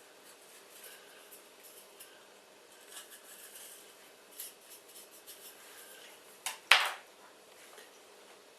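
Faint scraping and light clatter of small hard parts and tools being handled, with two sharp knocks close together about six and a half seconds in.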